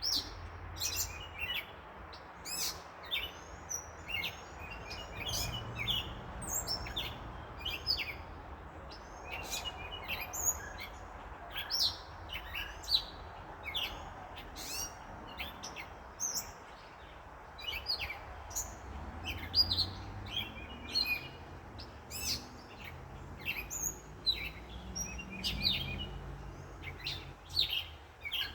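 Small birds chirping, many short high calls overlapping and repeating throughout, over a low steady rumble of distant traffic.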